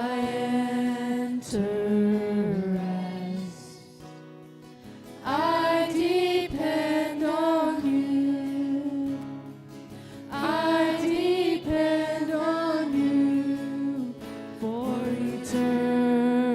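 Worship song: singing over strummed acoustic guitar, with two long sung phrases in the middle.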